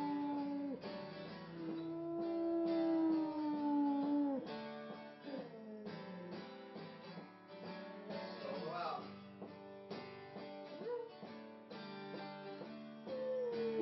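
Acoustic guitar being strummed while a dog howls along in long held notes that slide downward, with a higher wavering howl about two-thirds of the way through.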